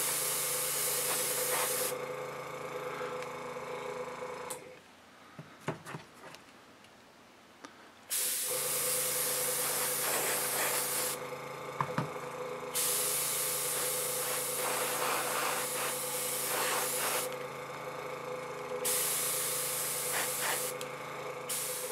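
Paasche double-action airbrush spraying weathering paint in several hissing bursts of a few seconds each. Under it runs the steady hum of the air compressor, which shuts off for a few seconds and then starts again.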